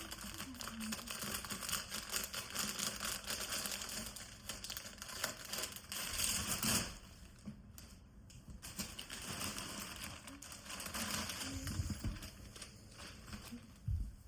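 Plastic packaging crinkling and crackling in quick irregular clicks as a bagged piece of clothing is handled and opened, with a short louder burst just before the halfway point and a quieter stretch after it.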